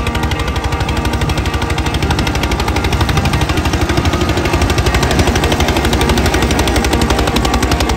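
Rapid, even pounding, about ten beats a second, steady throughout, with music playing over it.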